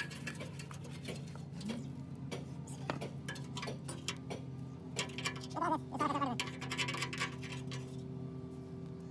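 Hand scraping and scrubbing inside the rusty steel tank frame of a dozer radiator with a brush and a wire rod: a run of irregular scratchy clicks over a steady background hum. A short voice-like pitched sound comes a little past halfway.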